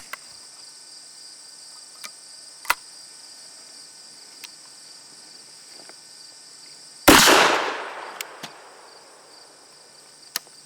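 A single shot from an H&R Tamer single-shot .410 shotgun about seven seconds in, loud, its report dying away over about a second. A few short sharp clicks come before and after it. Insects chirr steadily throughout.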